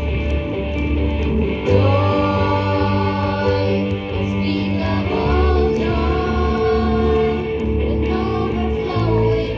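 Live amplified band playing: electric bass and electric guitar, with singing voices coming in about two seconds in.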